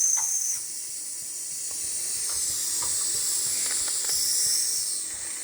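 Steam whistle on a steam boiler gives a short, high blast at the start, then steam hisses steadily from the boiler, with a fainter whistle tone about four seconds in.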